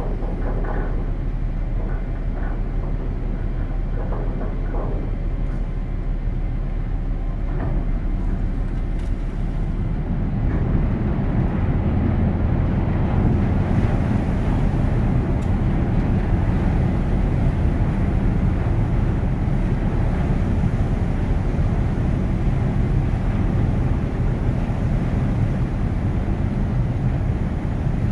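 Ro-ro ferry's diesel engines running while the ship lies alongside, a steady low rumble that grows louder about ten seconds in.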